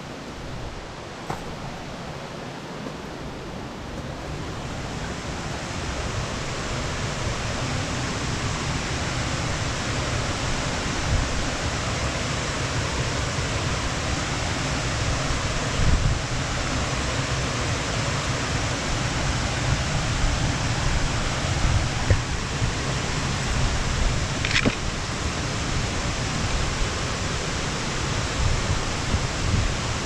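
Steady rush of falling water from a nearby cascade, growing louder over the first several seconds and then holding even, with uneven low rumbling on the microphone underneath.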